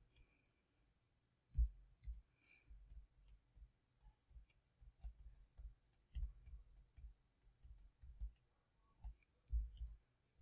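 Faint, irregular taps and knocks of a stylus writing on a touchscreen, several a second at times, with one stronger knock about a second and a half in.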